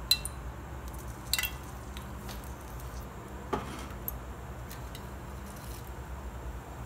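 Three light clinks of kitchen utensils or dishes, near the start, around a second and a half in, and midway, over a low steady hum.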